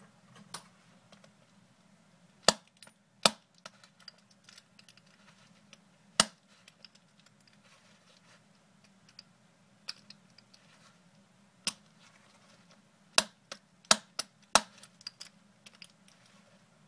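A bump key seated in an American Lock 5100-series padlock being struck again and again, giving sharp metallic taps. The taps come singly a few seconds apart at first, then in a quicker run of about eight in the last four seconds, as the bumping attempt goes on without the lock opening.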